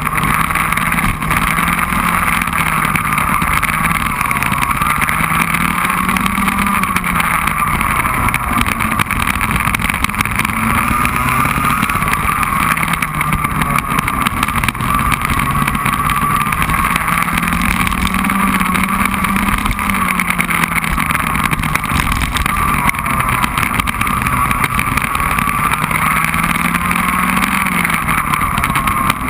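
Racing kart engine running hard under the onboard camera, its note climbing slowly and dropping back several times with speed through the corners, over constant wind rush on the microphone.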